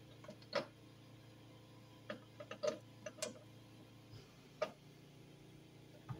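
Scattered light clicks and taps from a pressure cooker's lid and pressure valve as its pressure finishes dropping, irregularly spaced, with another click near the end as the lid handle is grasped.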